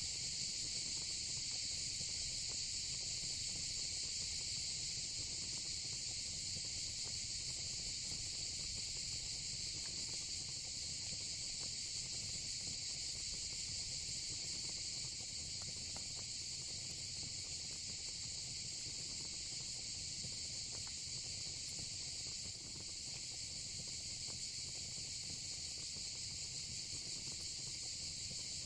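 Steady, high-pitched chirring chorus of insects, with a fire burning low underneath and giving off occasional faint crackles.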